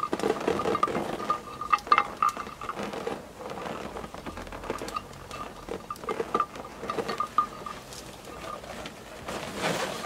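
Latex balloons squeaking and rubbing as they are handled, while a long thin twisting balloon is wrapped tight to tie the garland on. Irregular short squeaks at much the same pitch, mixed with light taps and clicks.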